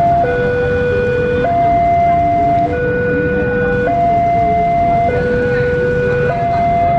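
Level crossing warning alarm sounding a two-tone hi-lo, switching between a lower and a higher steady tone about every 1.2 seconds. An approaching KRL electric commuter train rumbles low underneath.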